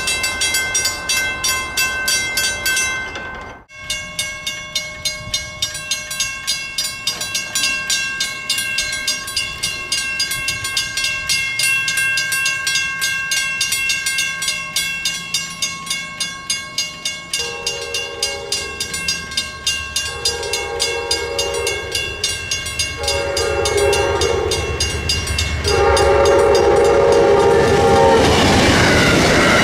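Railroad grade-crossing bell ringing steadily, with a brief dropout about four seconds in. From about 17 seconds in, an approaching Amtrak diesel locomotive sounds its horn in four blasts, the grade-crossing signal. Near the end the train passes the crossing with a loud rush of noise.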